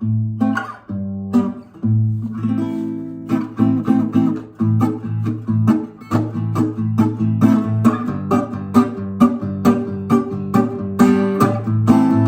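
A 1950s French Patenotte acoustic guitar being played. A few ringing chords come with short gaps, then from about three seconds in a steady rhythm of strummed chords and picked notes follows.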